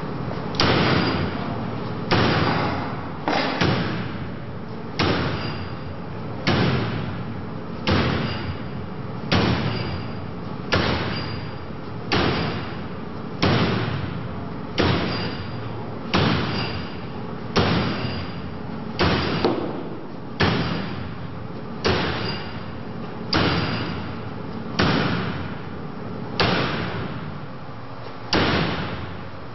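Axe blows against a woven metal wire drapery, about twenty hard strikes at an even pace of roughly one every second and a half, each followed by a short echoing ring, some with a faint high metallic ring.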